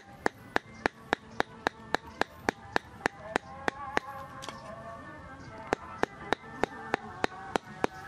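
Cleaver mincing raw meat on a round wooden chopping board: sharp, evenly spaced knocks about three a second, pausing briefly a little past the middle before carrying on.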